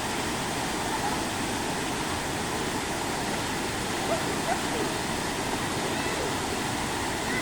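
A waterfall's falling water making a steady, unbroken rushing noise.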